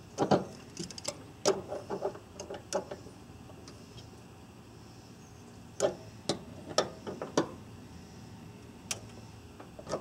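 Sharp metallic clicks and clinks of tongue-and-groove pliers working the brass caps on a mini-split's service valves as the caps are snugged tight: a quick run of them in the first three seconds, then a few more from about six to seven and a half seconds in.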